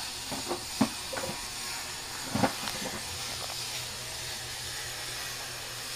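Steady background hiss with two short knocks, about a second in and again about two and a half seconds in.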